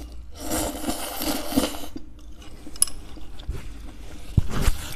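A person loudly slurping ramen noodles for about a second and a half, then quieter chewing, with two dull knocks near the end.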